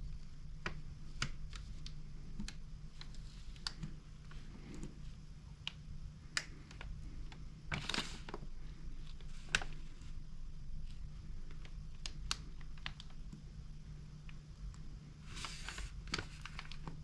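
Scattered light clicks and taps of small metal carburetor parts being handled as a metering lever, its spring and the inlet needle are fitted into a small diaphragm carburetor, with two short scraping rustles, the first about halfway through and the second near the end.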